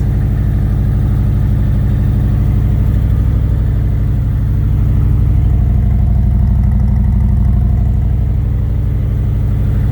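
Harley-Davidson Milwaukee-Eight V-twin idling through a new slip-on muffler, a steady even pulse that swells slightly about five seconds in and settles back near the end. The exhaust is quieter than stock, its baffles wrapped tight in steel wool.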